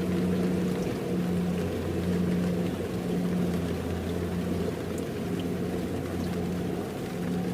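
Kubota DC-70 rice combine harvester's diesel engine running steadily, a low drone with a note that swells and fades about once a second.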